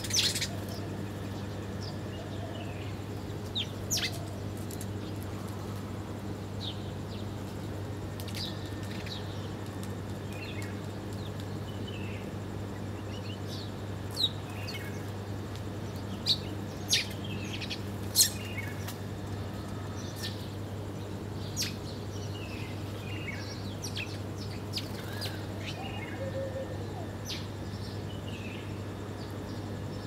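House sparrows chirping in short, scattered chirps while they feed. A few sharp, louder clicks stand out, mostly between about 14 and 18 seconds in, over a steady low hum.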